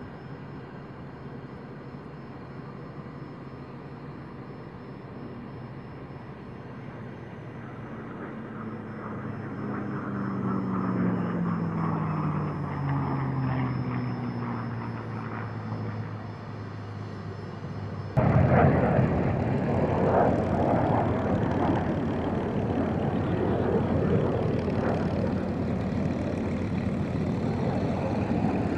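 A P-51 Mustang and an F-22 Raptor flying by in formation: the Mustang's piston engine drone swells and falls steadily in pitch as they pass. About two thirds of the way through it cuts abruptly to the louder, rougher running of a P-38 Lightning's twin piston engines on the ground.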